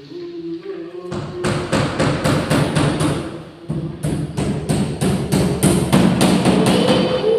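Rapid hammering on the ceiling work, about four blows a second, in two runs with a short pause between.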